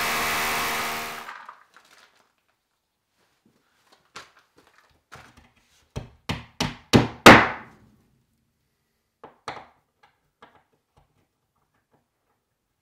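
A power tool running and winding down in the first second or so, then a series of knocks and thuds: a quick run of about five past the middle, the last one loudest and ringing briefly, followed by a few light clicks.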